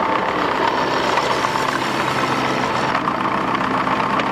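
Bobcat mini excavator's diesel engine running steadily as the machine is driven slowly up.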